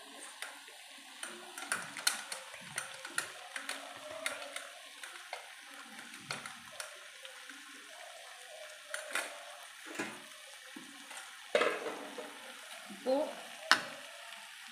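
Metal slotted ladle scraping and clicking irregularly against a metal kadai as boiled, mashed potatoes are stirred into frying onions and tomatoes, over a faint sizzle of the oil. A few louder knocks near the end.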